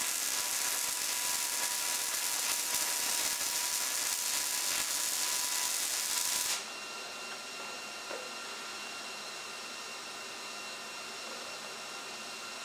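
MIG welding arc on mild steel, from a Millermatic 211, crackling and hissing steadily as a bead is laid, then cutting off abruptly about six and a half seconds in. After that only a quieter steady hum remains.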